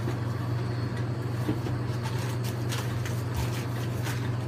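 A steady low hum, with a few light rustles and clicks over it.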